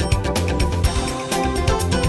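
Background music with a steady drum beat over held notes.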